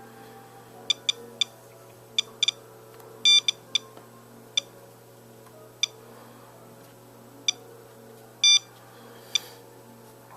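Handheld Geiger counter beeping once for each detected count: a dozen or so short, high beeps at random, uneven intervals, about one a second, with two held a little longer.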